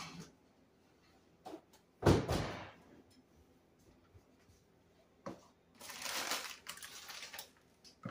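Oven door shut with a bang about two seconds in, after a lighter knock at the start. Later comes a second-long rustle and a few small clicks of kitchen handling.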